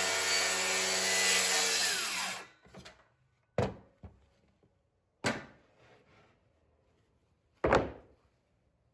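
Cordless DeWalt circular saw cutting along a straight-edge guide, trimming a cabinet door's edge flush; about two and a half seconds in the motor is released and the blade winds down with a falling whine. Then three sharp knocks over the next five seconds.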